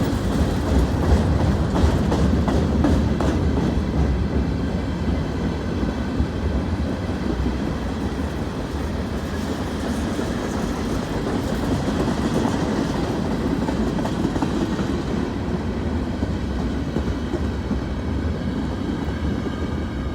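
CN freight train rolling past, a steady rumble of wheels on rail with clickety-clack clicks over the rail joints, the clicks thickest in the first few seconds.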